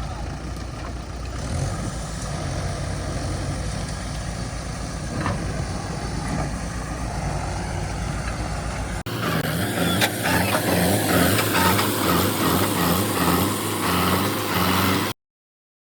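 Heavy diesel engine running steadily. About nine seconds in the sound cuts to a louder diesel engine with a regular low pulsing, which stops abruptly near the end.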